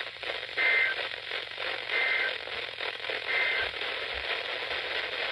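Emergency Alert System end-of-message data bursts: three short bursts of two-tone digital data, about a second and a half apart, over steady radio static and crackle. They mark the end of the alert message.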